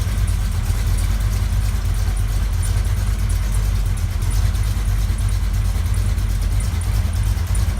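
Engine of a big-tire off-road race buggy running steadily at a low, even speed, started so the axles can be turned one way.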